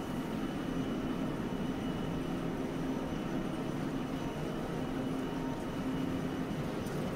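Steady drone of Kagoshima City tram car 9502 standing at the stop with its rooftop equipment running, a low hum holding an even level.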